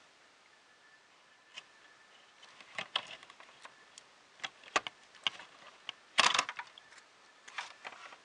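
Irregular small plastic clicks and taps from handling a 3D printer's print head feeder cable and its connector plug, with a louder short rattling cluster about six seconds in.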